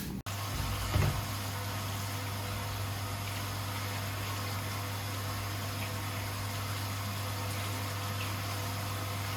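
A steady, unchanging machine hum with an even hiss, and a single soft knock about a second in.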